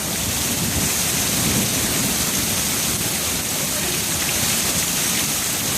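Heavy rain pouring down steadily, a dense even hiss of a downpour.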